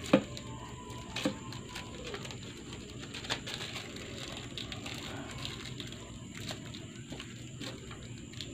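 Handling noise from fingers pressing and rubbing anti-fog film onto a plastic helmet visor: many small ticks and scrapes, with three sharper clicks, the loudest right at the start and others about one and three seconds in.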